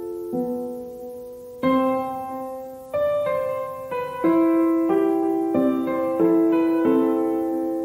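Background piano music: slow, gentle notes and chords, each struck and left to ring out, a new one about every second.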